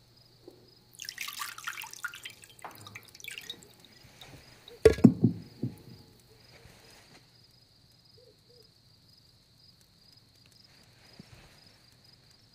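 Water pouring and splashing in an earthenware foot-washing basin, with a sudden louder splash about five seconds in. Crickets chirr steadily throughout.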